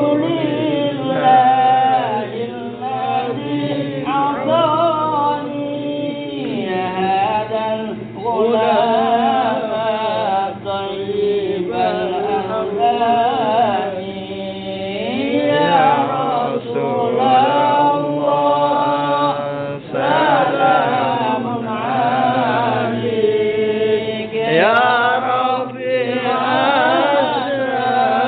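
Men chanting Arabic sholawat, devotional praise of the Prophet, in a rising and falling melody. A lead voice is amplified through a microphone, and the phrases break every few seconds.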